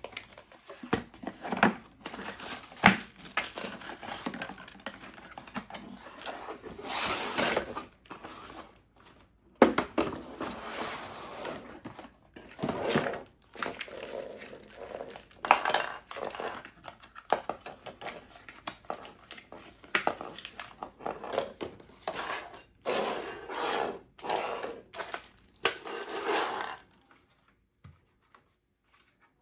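Unboxing handling: cardboard box and packaging being handled, with irregular knocks, clicks and rustling, set down and handled in bursts. It stops near the end.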